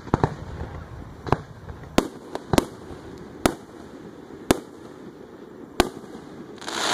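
Aerial fireworks shells bursting: a string of sharp bangs at uneven intervals, then a rush of hissing near the end.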